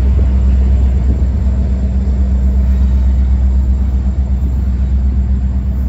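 BNSF diesel freight locomotive moving away, a steady low engine rumble with a constant hum over it.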